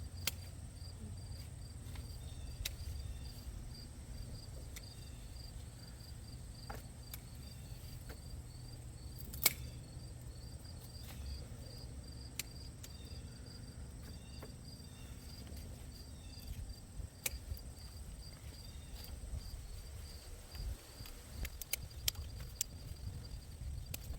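Crickets chirping in a steady, evenly pulsed high-pitched train over a low rumble. Scattered sharp clicks, the loudest about nine and a half seconds in.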